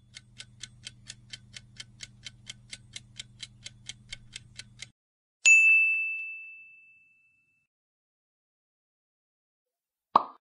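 Quiz countdown-timer sound effect ticking about four times a second over a low hum for about five seconds. Then a single bright ding rings out and fades over a couple of seconds, marking the reveal of the answer. Near the end there is a short pop as the screen changes.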